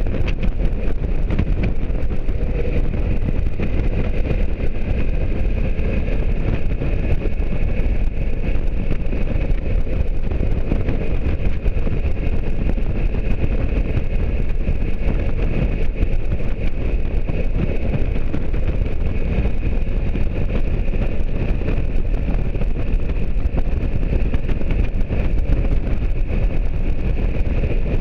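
Motorcycle riding at a steady cruising speed: a steady engine drone mixed with wind rushing over the microphone.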